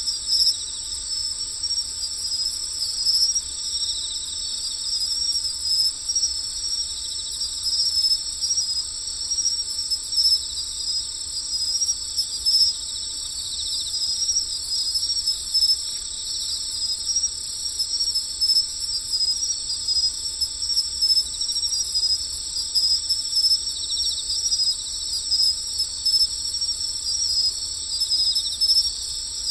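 Crickets trilling in a steady, continuous high-pitched chorus with a fine pulsing shimmer.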